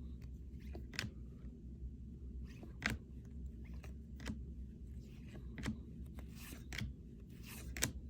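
Baseball cards being handled and flipped through: a few sharp clicks of card stock and soft sliding scrapes, spaced a second or so apart.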